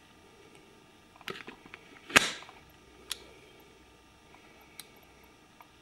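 Clicks from a Nikon D2X camera body being handled and tried out after a shutter repair: a few small clicks about a second in, one sharp, loud clack a little after two seconds, then single light clicks near three and five seconds.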